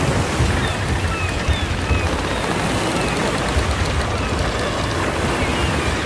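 Steady rush of ocean waves breaking on a shore, with several faint, short, falling bird calls heard over it.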